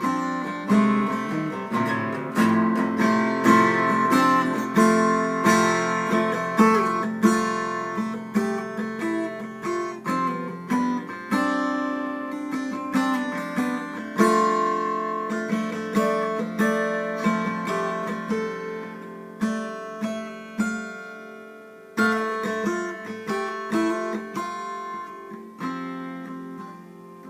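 Acoustic guitar in D standard tuning, every string a whole step down, played solo: a running mix of strums and picked notes around an F chord, with a hard strum late on.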